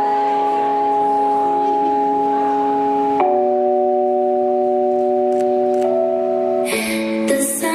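Performance music of long held chords, changing about three seconds in and again near the end, where busier music begins.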